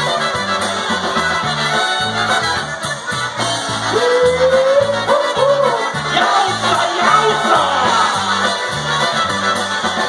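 Live polka band playing, with trumpets and accordion over a bouncing oom-pah bass line. A long note is held near the middle.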